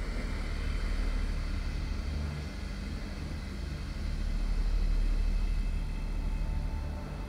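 A man's slow, deep breathing through the nose, with the soft throaty hiss of Ujjayi breath, over a steady low rumble.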